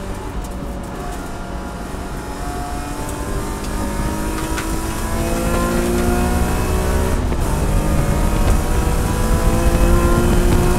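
Race car engine at full throttle, heard from inside the cockpit, revving up through third gear to about 7000 rpm. About seven seconds in there is a quick upshift to fourth: the pitch drops, then it climbs again.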